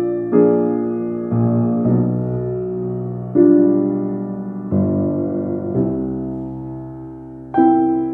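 Slow, sparse piano music: chords struck about once a second and left to ring and fade.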